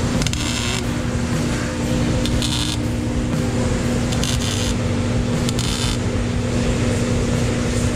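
MIG welder laying plug welds into holes in a sheet-steel dashboard: four short crackling bursts of the arc, each under a second, over a steady low hum.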